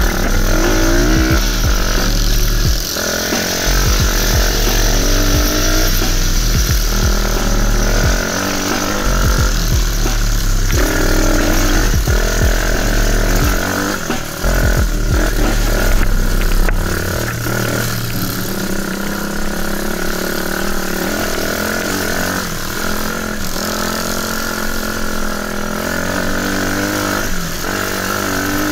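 Enduro dirt bike engine running under throttle on a trail, its pitch rising and falling as the rider revs and eases off. A heavy low rumble underneath drops away about two-thirds of the way through.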